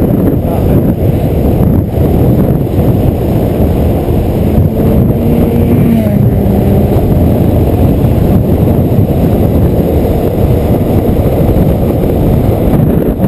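Steady, loud roar of wind buffeting a camera microphone moving fast downhill, mixed with the rumble of wheels rolling on rough asphalt.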